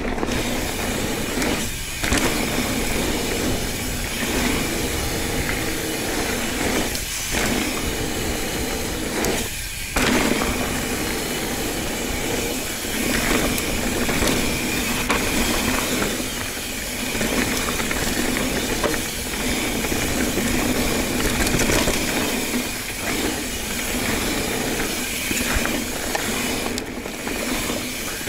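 Ibis Ripley 29er mountain bike riding fast down a dirt trail: a steady rush of tyres and air with a faint steady whir and mechanical rattle. The rush drops off briefly about 2, 7 and 10 seconds in.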